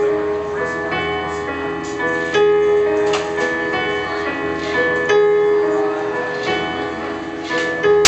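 Yamaha digital keyboard played with a piano sound: a slow instrumental intro of sustained chords and single melody notes, before the vocals come in.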